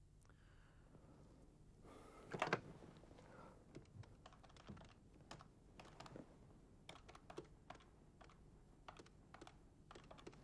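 A corded desk telephone's handset is picked up with a brief clatter about two and a half seconds in. Its number keys are then pressed one after another, a long run of quiet, irregular clicks, as a number is dialled.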